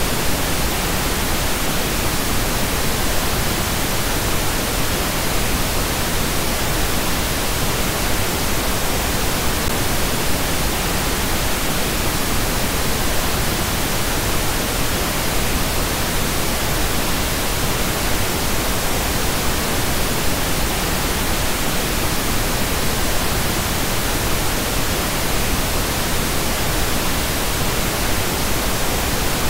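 Pink noise test signal: a steady, even hiss at a constant level.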